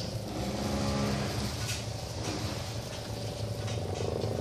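Motor vehicle engine running amid steady road-traffic hum, its drone strongest in the first half.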